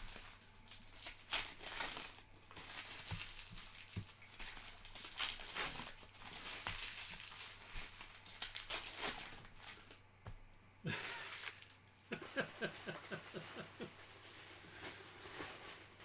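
Plastic trading-card pack wrappers crinkling and tearing open, with many small clicks from handling, and a quick run of rasping strokes a few seconds before the end.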